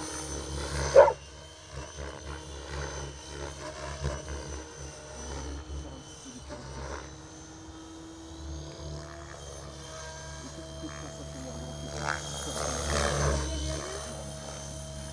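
Radio-controlled model helicopter flying aerobatics: a steady rotor drone with a high motor whine, swelling louder near the end as it comes lower. A short, loud sound cuts in about a second in.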